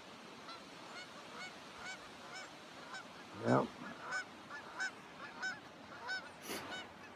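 A flock of geese honking, faint, with many short calls following each other at irregular intervals, about two a second.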